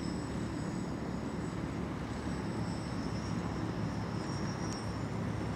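Small FPV quadcopter's brushless motors and propellers buzzing steadily in flight, a thin high whine over a steady low rumble.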